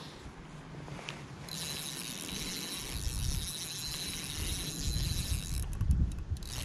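Korum Latitude spinning reel being wound in against a hooked carp, a steady whir that starts about a second and a half in and stops shortly before the end. A low rumble grows louder over the second half.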